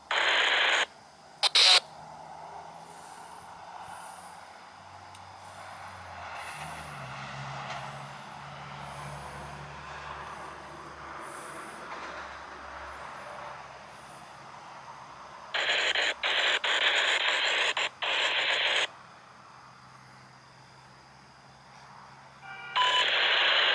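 Railroad scanner radio keying up with bursts of static hiss and no voice: a short burst at the start, a three-second burst past the middle, and another starting just before the end. Between them a faint low steady hum.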